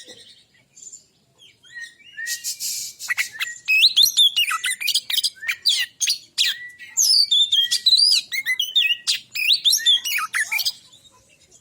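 Male oriental magpie-robin singing. A harsh buzzy rattle comes about two seconds in, then a long, varied run of loud whistles, glides and quick chattering notes that stops shortly before the end.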